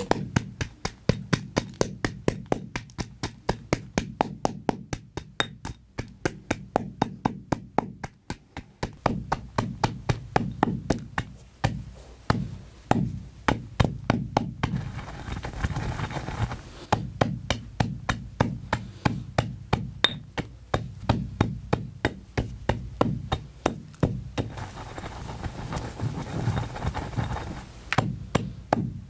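Gym chalk being crushed into powder with quick repeated strikes, about three a second, with two stretches of gritty crumbling noise, about halfway through and near the end.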